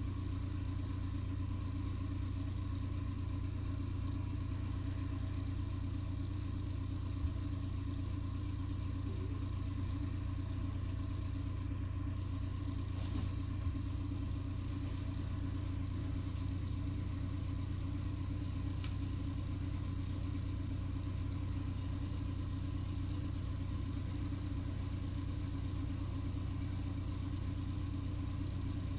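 Steady low machine hum, constant in pitch, with a couple of faint light clicks partway through.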